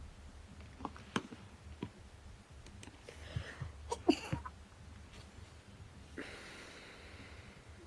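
A woman's short, stifled allergy sneeze about four seconds in, brought on by pollen, after a few faint clicks. Then a breath of about a second.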